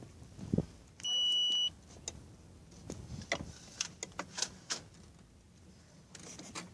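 A single steady high electronic beep about a second in, lasting under a second, from a self-balancing electric unicycle, followed by scattered light clicks and knocks as the unicycle is carried.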